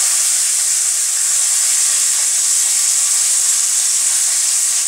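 Chopped onions frying in a kadai of hot oil: a loud, steady sizzle that brightens as they settle into the oil at the start.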